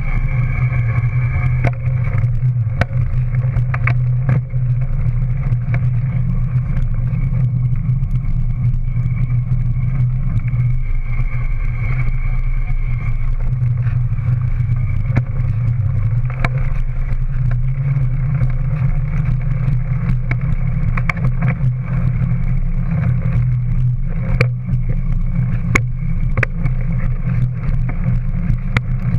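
Steady low rumble of a dual-suspension mountain bike's rear tyre rolling over tarmac and concrete path, picked up through a camera mounted on the bike's rear, with scattered small knocks and rattles from bumps.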